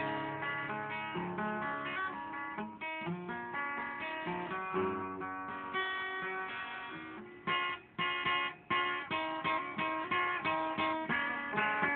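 Acoustic guitar playing an instrumental passage of the song without singing, with picked notes and strummed chords. There are two short stops a little past the middle before the playing picks up again.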